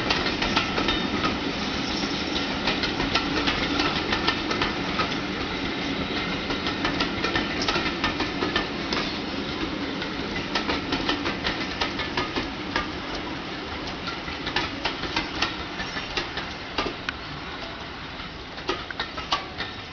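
Railway passenger coaches rolling past at low speed, their wheels clicking and clanking over the rail joints, with a steady rumble underneath; the sound slowly grows quieter as the train draws away.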